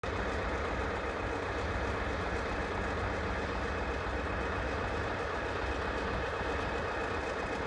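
Steady rumble of a railway train, with a low drone.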